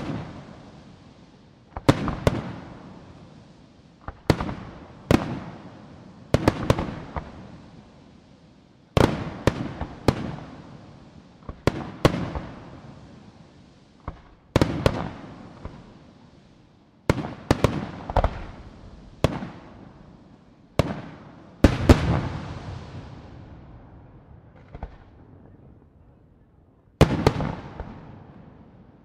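Aerial fireworks shells bursting one after another, a sharp bang every one to two and a half seconds, each trailing off in a long echo. A few bangs come as quick doubles, and there is a pause of about four seconds near the end before another burst.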